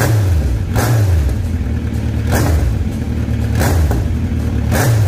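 Kawasaki Z900RS 948 cc inline-four running through a Delkevic aftermarket exhaust, idling and revved with four short throttle blips, each dropping back to idle.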